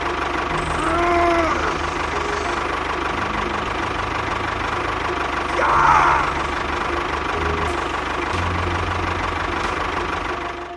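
Tractor engine chugging steadily at a low, even pace. Two short gliding calls rise over it, one about a second in and a louder one around six seconds in.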